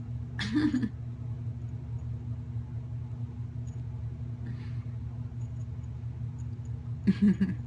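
A steady low hum, with two brief sounds from a woman's voice, about half a second in and near the end.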